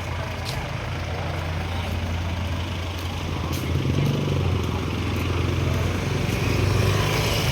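A motor vehicle's engine running steadily, with a low hum that gets a little louder from about four seconds in.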